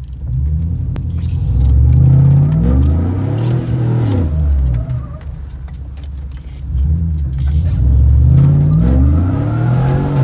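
Chevrolet Avalanche's V8 engine heard from inside the cab, revving hard twice as the truck spins on wet pavement. Each time the pitch rises for a couple of seconds and then falls back, the second rev starting about halfway through. Keys jangle against the steering column.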